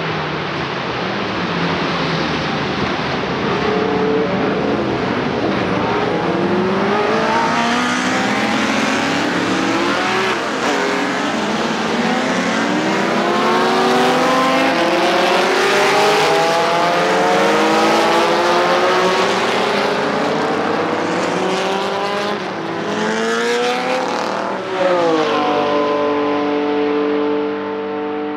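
Several historic racing car engines accelerating hard, overlapping as they pass, each pitch climbing and dropping back again and again as the cars change up through the gears. Near the end one engine settles into a steady high-revving note.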